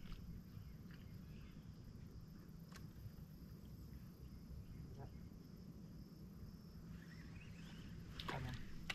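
Quiet outdoor ambience: a steady low rumble, a faint high-pitched tone pulsing on and off, and a few light clicks, with a short louder clatter near the end.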